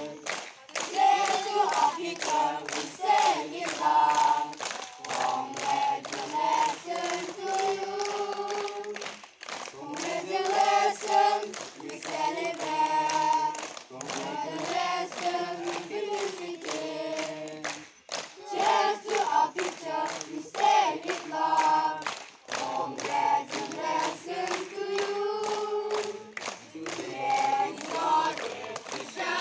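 A group of voices singing a song together, with hands clapping along.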